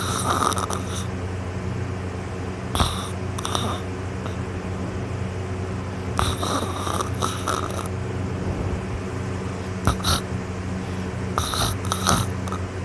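A person snoring in their sleep, with a high-pitched snore about every three seconds, five or so in all, over a steady low hum.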